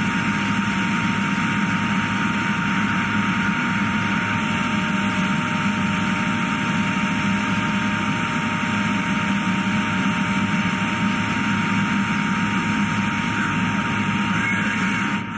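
Doosan DNM5700L CNC vertical mill full-slotting titanium with a 1/8-inch HPHV flat end mill at 4584 RPM: a steady high cutting tone over the hiss of flood coolant spraying on the cut.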